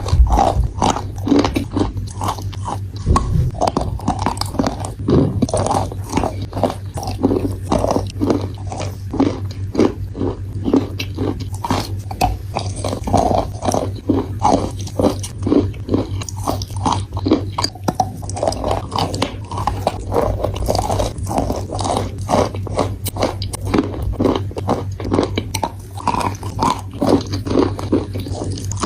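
Chalk being bitten and chewed close to the microphone: continuous dry crunching, with a sharper bite every second or so.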